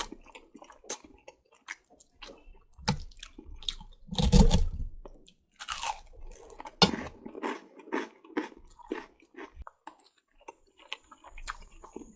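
Close-miked ASMR eating sounds of spaghetti and meatballs in red sauce: wet chewing and lip smacks, with a louder slurp or big bite about four seconds in.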